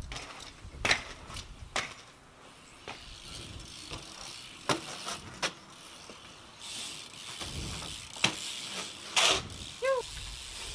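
BMX bike being ridden on concrete: scattered sharp clicks and knocks from the bike and its parts, with a stretch of rolling hiss from about two-thirds of the way in.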